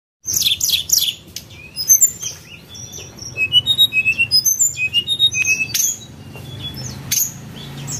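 Birds chirping and squawking in quick series of short, high calls, some sliding in pitch, over a steady low hum.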